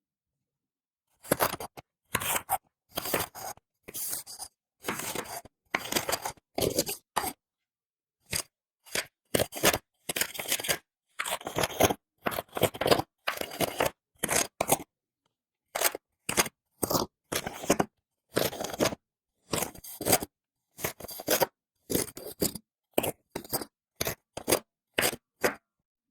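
A blade slicing through packed kinetic sand again and again: short, gritty scraping cuts in quick succession, with dead silence between them and a longer pause about eight seconds in.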